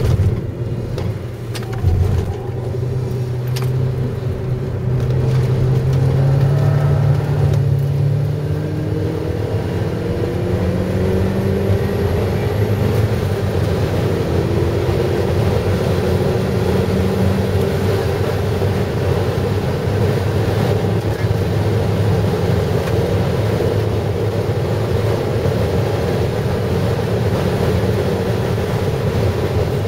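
Car engine heard from inside the cabin, running hard on track: its note rises through the revs a few times, then holds steady at speed. A few sharp knocks come in the first two seconds.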